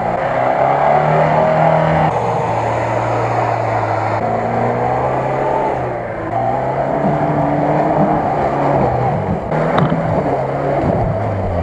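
Engines of off-road 4x4s, Lada Nivas among them, running under load as they churn through deep mud, with a rising rev near the end.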